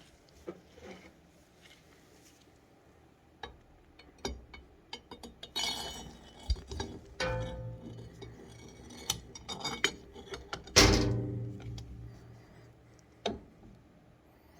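Metal clinks and knocks from the old Plymouth's gearshift parts being handled, in an irregular run of taps. The loudest, near the end, rings briefly.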